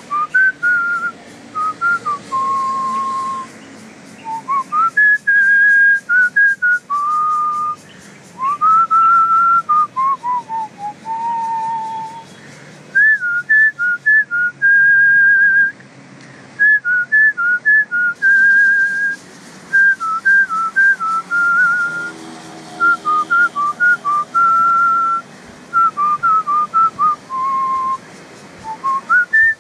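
A person whistling a tune: a single melody of held notes, slides and quick trilled ornaments, phrase after phrase with short breaks between.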